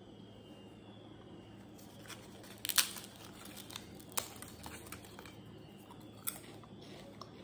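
Crisp papads being broken by hand: a few sharp crackling snaps, the loudest about three seconds in, then smaller cracks.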